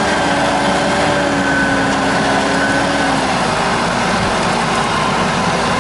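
Mitsubishi Pajero's engine running steadily under load as the SUV crawls up a muddy slope, its front wheel churning through the mud, with a steady whine over the engine noise.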